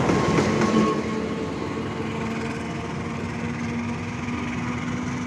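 A CC206 diesel-electric locomotive running light past at close range, its wheels clicking over the rail joints in the first second, then a steady diesel engine drone.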